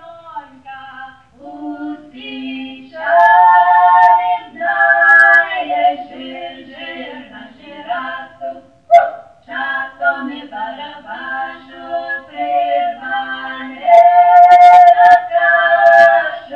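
A small group of unaccompanied voices singing a Georgian folk song in several-part harmony, holding long chords that change in steps.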